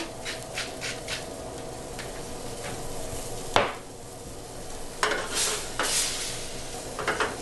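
Tomato and wine-reduction sauce sizzling steadily in a frying pan while a utensil stirs it, with short clicks and scrapes and one sharp knock about three and a half seconds in.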